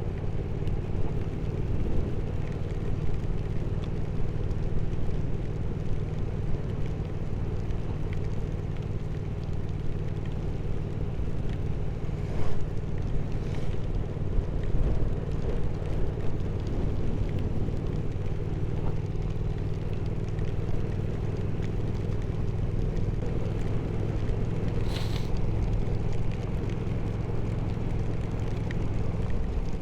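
Motorcycle engine running at a steady cruise, heard on board, with wind and road noise over it and a couple of brief ticks.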